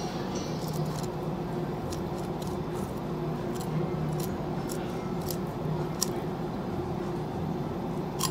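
A steady low machine hum, with scattered short ticks and clicks from a knife cutting along a whole amberjack's belly and fin bones.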